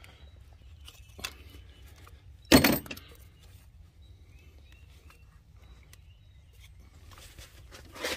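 Small metallic clicks and clinks of a hand and a small wrench working at the fuel injector connectors on a Gen 1 Toyota Prius engine, with one sharp, loud knock a little over two seconds in and a quick run of clicks near the end.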